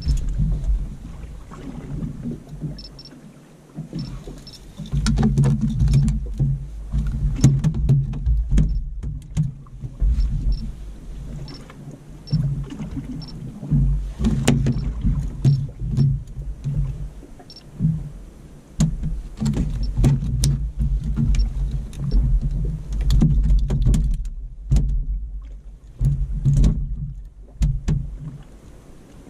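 Low, uneven rumble of water and wind around a small open fibreglass fishing boat drifting at sea, swelling and fading every few seconds. Scattered sharp knocks and clatter come from a fish being handled on the deck.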